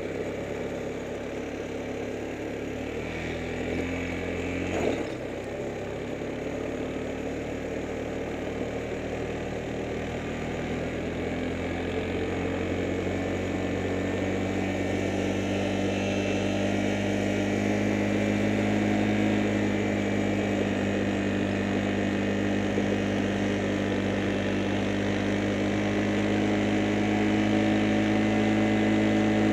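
Engine of the vehicle carrying the camera, running steadily as it travels down a gravel road. Its note rises slowly and grows louder over the second half, and there is a single knock about five seconds in.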